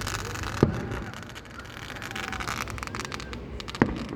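Fireworks going off, with two sharp bangs about three seconds apart and a steady crackle between them.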